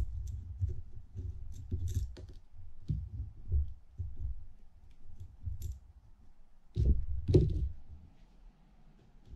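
Hands handling small metal parts of a Penn International II 50T reel's spool and drag assembly: light clicks and rubs as a tiny screw is fingered into place. A louder knock and rub comes about seven seconds in, as a small screwdriver is picked up off the table.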